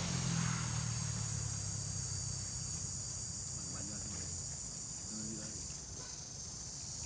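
Steady high-pitched insect chorus, with a low rumble fading out over the first two to three seconds.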